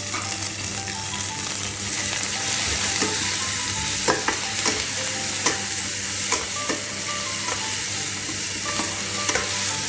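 Onion, aromatics and tomatoes sizzling steadily in a very hot pan, with a spatula knocking against the pan now and then as the mix is stirred.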